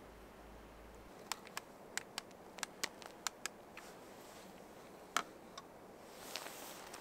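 Light, sharp clicks and taps of a small battery camping lantern being handled and hung on a tent pole: about ten in two seconds, then two more a little later. A soft rustle comes near the end.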